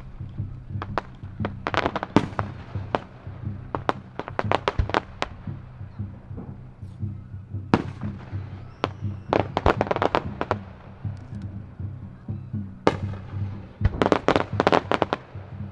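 Aerial firework shells bursting, with clusters of rapid crackling reports and a few single, louder bangs between them.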